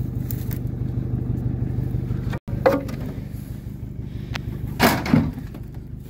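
A van engine idling with a low, even hum, and a short louder noise about five seconds in.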